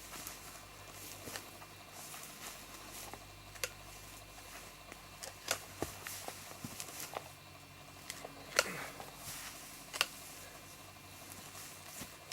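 Scattered sharp clicks and snaps of pine branches being pruned, over a faint steady hum.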